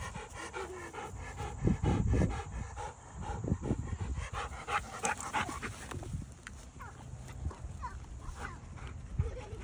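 Mixed-breed dog panting in quick, even breaths.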